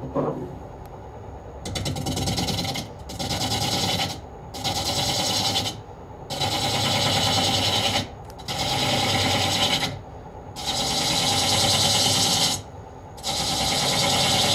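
Turning tool cutting a spinning wooden cup on a lathe, removing excess wood: about seven cuts of one to two seconds each, with short pauses between them.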